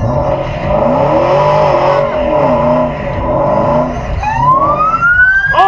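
A car engine revving up and down with tyres squealing, then a siren starting to wail upward about four seconds in.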